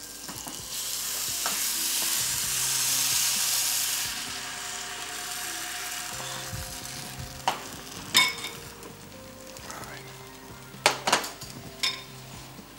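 Filloa (thin crepe) batter sizzling as it hits a hot greased frying pan and is swirled around. The sizzle swells about a second in, then settles to a softer steady hiss. A few sharp clinks of utensils against the pan come in the second half.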